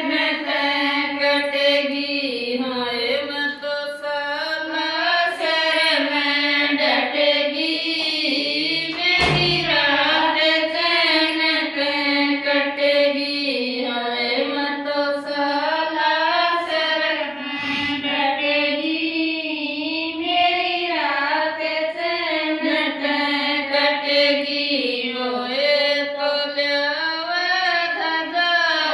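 A group of women singing a Rajasthani folk bhajan to Balaji (Hanuman) together in unison, voices only, in a steady chant-like melody.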